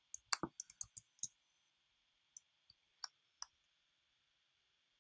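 Clicks from working at a computer while editing text: a quick run of about eight sharp clicks in the first second and a half, then four scattered clicks a little later.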